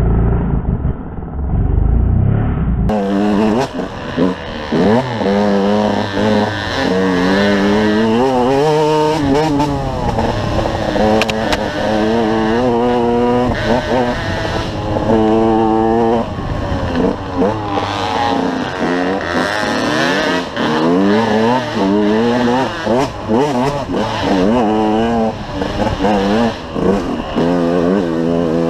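KTM 125 EXC two-stroke dirt bike engine, heard from the rider's helmet, revving hard and dropping back over and over as the rider works the throttle and shifts along a twisting trail. The pitch climbs and falls every second or two. The first three seconds or so sound muffled and boomy.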